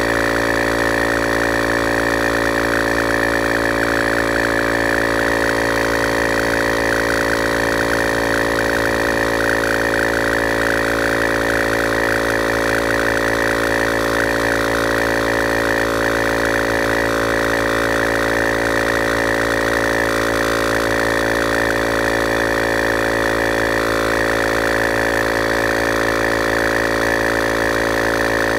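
Bergmann analog 12 V tyre inflator's compressor running with a steady buzzing hum as it pumps up a car tyre, partway from about 14 to 32 psi.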